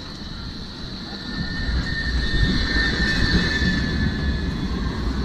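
A vehicle's low rumble, growing louder about a second and a half in, with two steady high whining tones over it.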